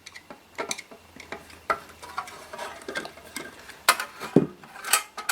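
Irregular small metallic clicks and taps as the aluminium-cased power supply unit and its screws are handled, with a few sharper knocks near the end.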